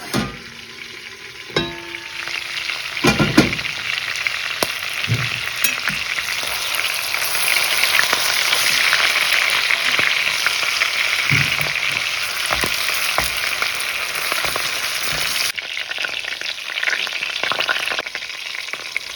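Lamb shanks sizzling as they brown in hot oil and butter in a pot: a steady, dense frying hiss, loudest midway. A few sharp knocks come in the first few seconds.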